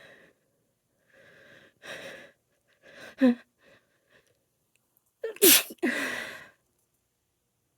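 A woman's allergy sneezes: a couple of gasping in-breaths, a sneeze about three seconds in, then a much louder sneeze about five and a half seconds in.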